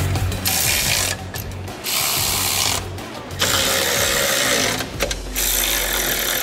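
Cordless electric ratchet running in four bursts of one to two seconds each, spinning bolts on a car's front-end brackets.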